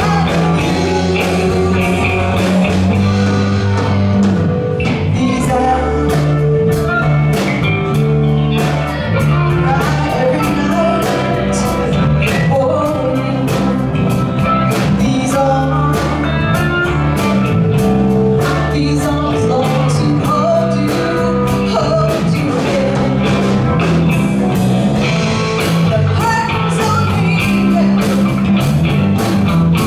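Live band playing a rock song, with a singer over electric guitar and a drum kit.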